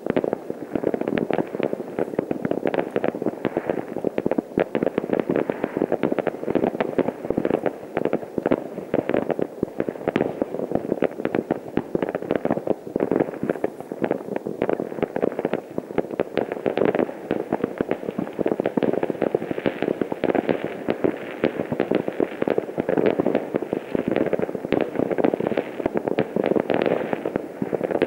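Many fireworks bursting at once across a town: a dense, unbroken crackle of overlapping bangs and pops with no pause.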